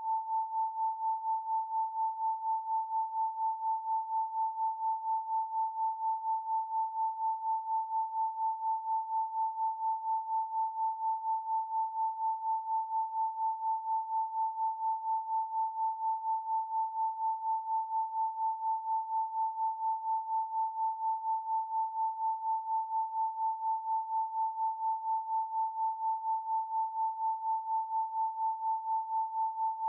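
A pure 888 Hz sine tone held steady, pulsing gently in loudness about four times a second.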